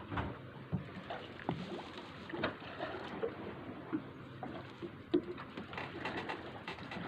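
Small fishing boat at sea: a steady low rumble with water moving against the hull, broken by scattered light knocks and clicks.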